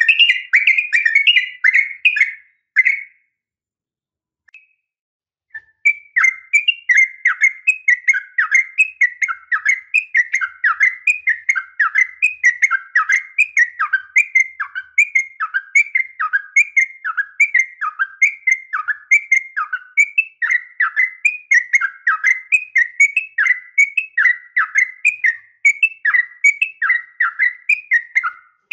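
Sooty-headed bulbul (trucukan) calls, presented as a female calling a male: a fast chattering run, a pause of about three seconds, then a long even series of short downward-slurred notes, about two or three a second.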